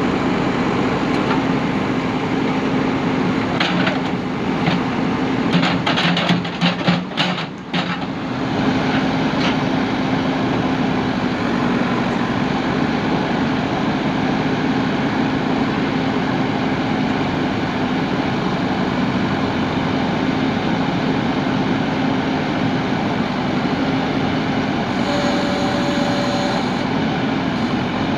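JCB backhoe loader's diesel engine running steadily, with a burst of sharp knocks and clatter between about four and eight seconds in, and a brief high whine near the end.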